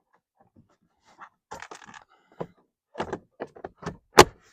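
Plastic interior trim pieces being handled and fitted back into place: scattered clicks and knocks, with a sharp knock about four seconds in.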